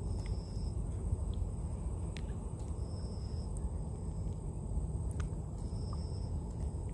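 Night insects: a steady high whine, with a short high chirp about half a second long repeating roughly every two and a half to three seconds, over a low steady rumble.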